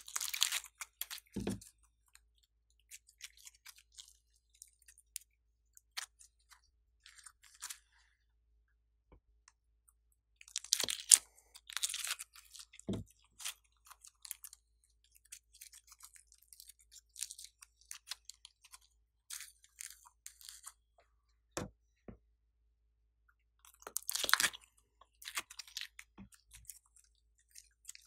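Sticky white slime squeezed, pulled and stretched by hand, giving off intermittent wet crackling and clicking, loudest in bursts at the start, about 11 seconds in and about 24 seconds in, with a few dull low knocks.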